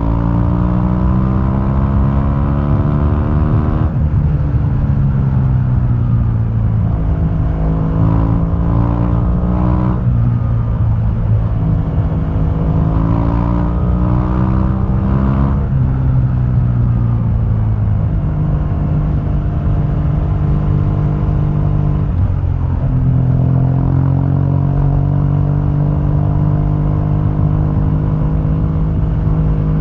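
2015 BMW R1200GS's liquid-cooled boxer twin running through its stock exhaust while being ridden: the engine note climbs in pitch as it accelerates and drops sharply at gear changes, about four times.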